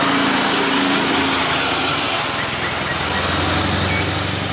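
Heavy semi-trailer truck's diesel engine running as the truck drives slowly past, a steady hum with a high whine over it. It cuts off suddenly at the end.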